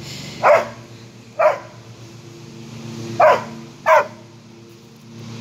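Doberman barking four short, sharp barks, two about a second apart, then a pause, then two more close together. These are alert barks from a dog on the watch for chicken hawks.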